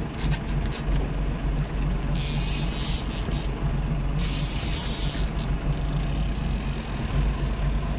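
Sportfishing boat's engine running steadily with a low hum, broken by two stretches of hissing, each over a second long, about two and four seconds in.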